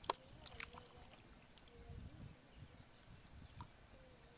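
A sharp slap just after the start as a fish drops into a plastic basin, then faint splashing and squelching of hands in shallow muddy water, with a few smaller clicks. Faint wavering animal calls and faint repeated high chirps sound in the background.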